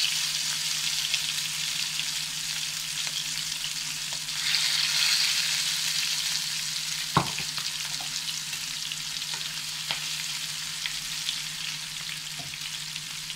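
Marinated chicken drumsticks frying in hot oil with curry leaves, a steady crackling sizzle. It swells about four and a half seconds in as another drumstick goes into the pan, then slowly dies down. There is one sharp click about seven seconds in.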